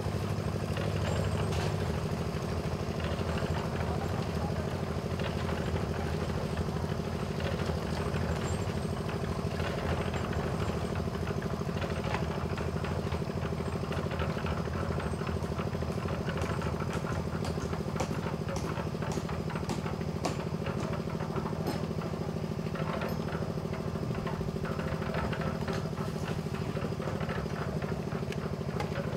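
Small diesel engine of a drum concrete mixer running steadily, with scattered clicks and scrapes over it as the drum turns and is loaded with sand and broken stone.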